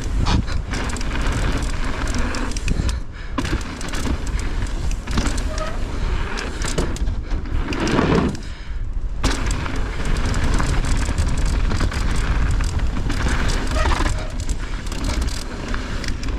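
Mountain bike ridden fast down a dirt trail: heavy wind rumble on the helmet or chest microphone, tyres rolling over dirt and the bike rattling with many small knocks over bumps. It briefly drops away twice, once about three seconds in and for a little longer about halfway through.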